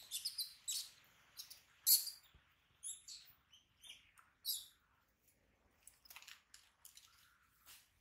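A young macaque eating a piece of food it holds in its hands: irregular short, crisp crunching and crackling sounds, the loudest about two seconds in.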